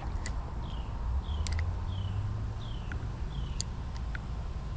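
Steady low rumble of highway traffic, with a bird repeating a short chirp that falls in pitch, five times at even spacing, and a few sharp clicks.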